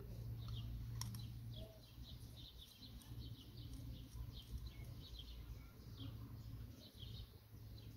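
Faint small-bird chirps, many short high notes scattered throughout, over a low steady hum, with one sharp click about a second in.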